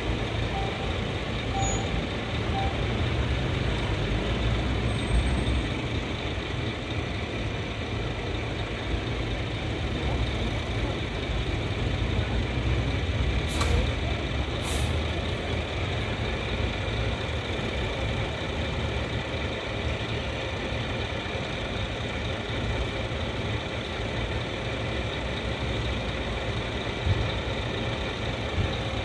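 Truck engine idling close by, a steady low rumble, with two short hisses about a second apart near the middle.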